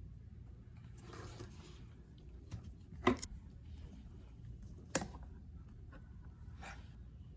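Small handling sounds of objects in a small room: a soft rustle, then two sharp clicks or knocks about two seconds apart, and a brief rustle near the end.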